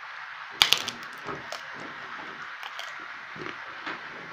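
Sharp plastic clicks and knocks from a toy train set being handled on a tiled floor: a loud pair under a second in, a few lighter taps after, and another loud knock at the very end, over a steady hiss.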